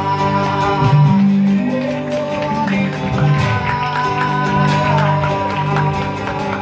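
Live music on two guitars, with long held notes over a moving bass line.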